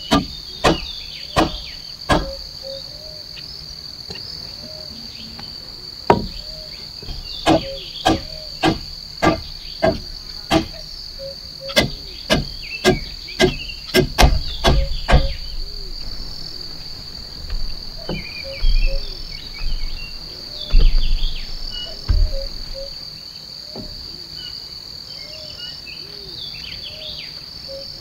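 A steady high-pitched insect chorus of crickets or cicadas, with runs of sharp knocks from hand-tool strikes, about two a second. The knocks come in the first two seconds and again from about six to sixteen seconds, with a few more near twenty to twenty-two seconds.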